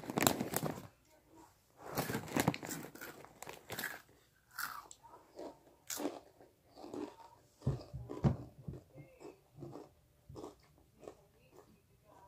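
Takis rolled corn tortilla chips being bitten and chewed: a run of irregular crisp crunches.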